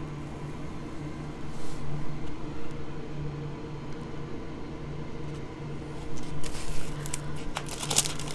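Steady background hum with a faint high whine; from about six seconds in, crisp crinkling as a film-covered diamond painting canvas is handled and set down.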